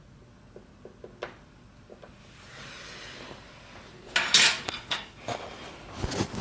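Small metal hand tools clinking and scraping on a work surface: a few light ticks at first, then a louder clatter of clinks about four seconds in.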